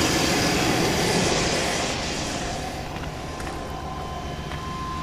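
Chevrolet Z71 pickup's engine idling, with a hiss of air through the intake airbox, a normal sound and not a fault. The sound grows quieter about two seconds in.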